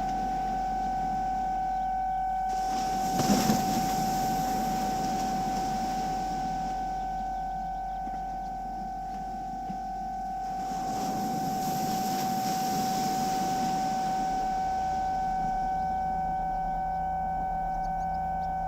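Battery-powered synthesizer improvisation: a steady, held high drone, with two swells of noise rising and falling under it. Near the end a lower tone and a low pulse about once a second join in.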